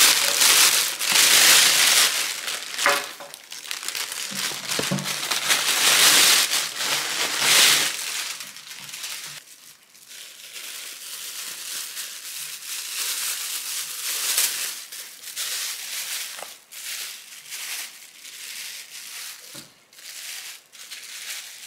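A thin plastic carrier bag rustling and crinkling loudly as takeout containers are pulled out of it. After about 8 seconds this gives way to quieter, intermittent crinkling of plastic film being peeled back from the top of a soup bowl.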